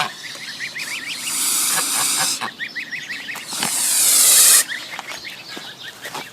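A bird chirping over and over in short, quick rising notes, broken by two loud hisses lasting about a second each, the second one louder.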